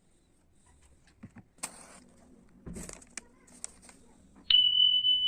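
A few faint clicks and short scrapes, then, near the end, a sudden loud, steady high-pitched tone that holds one pitch.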